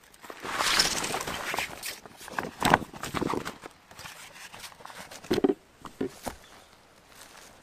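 A camouflage ground sheet rustling loudly as it is pulled up off the forest floor and gathered, followed by a few thumps and footsteps on leaf-covered ground about five seconds in.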